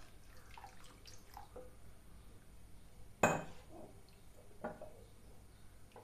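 Water poured from a glass jug into thick dal in a kadai and stirred in with a spatula: faint liquid sloshing and stirring, with one sharp knock a little after three seconds in and a couple of lighter ones later.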